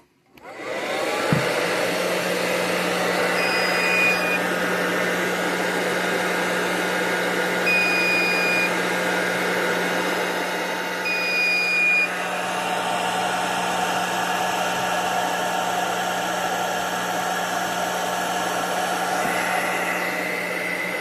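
Handheld hairdryer switched on, spinning up and then running steadily, blowing heat onto the alarm's thermistor. A thump about a second in, and three high one-second beeps from the alarm's piezo buzzer in the first half, sounding the alarm.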